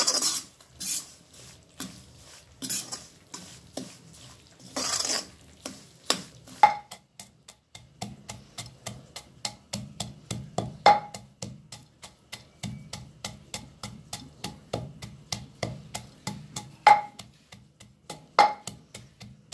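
A metal spoon scraping and stirring coarse-ground moong dal roasting in an iron kadhai. About six seconds in, it gives way to a wooden pestle pounding almonds and walnuts in a clay mortar: a steady run of quick dull thuds with an occasional sharper knock.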